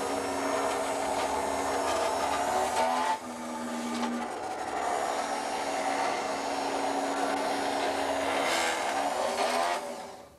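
Escalera electric stair-climbing hand truck's motor running with a steady whine as its lifting feet climb it up a step under a heavy load. The pitch drops briefly about three seconds in, then it runs on and cuts off near the end.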